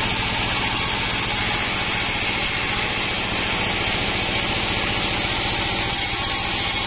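Homemade band sawmill running steadily while sawing wadang wood: an even low engine pulse under a broad high hiss, with no change throughout.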